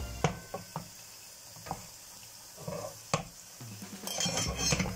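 A metal spoon knocking and scraping against a frying pan and a small stainless steel pot as chilli gravy is spooned across, a few sharp clinks in the first three seconds. Near the end comes a louder hissing sizzle of the hot pans.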